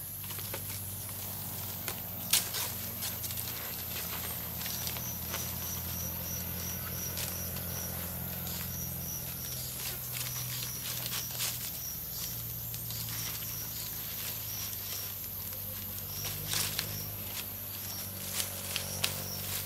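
Dry palm fronds rustling and scraping with scattered clicks and knocks as they are laid across a bamboo roof frame. Short, evenly spaced high chirps repeat in runs from a few seconds in, over a steady low hum.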